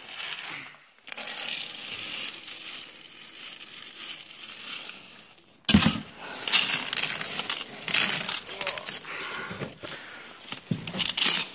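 Cat food and its packaging being handled to serve the cats: a soft rustling, crackling noise for about five seconds, then sharper clicks and rustles from about six seconds in.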